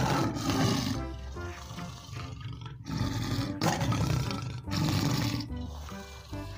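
Lion roaring over background music: one roar ends about a second in, and a second roar runs from about three to five seconds in.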